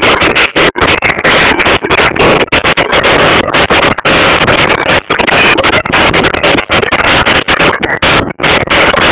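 Turbocharged tractor engine working hard under load while cultivating (subsoiling) a field, heard close from the driver's seat. The recording is overloaded: a harsh, distorted, steady din with many brief cut-outs.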